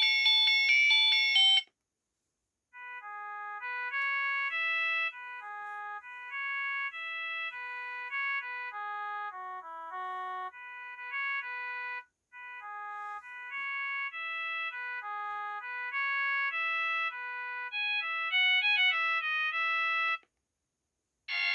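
HYKKER Classic mobile phone playing one of its built-in ringtones: a simple polyphonic melody of clean electronic notes, two or three at a time, with a brief break about halfway and a quick run of notes near the end. The last second and a half of the previous, brighter tone cuts off just before it starts.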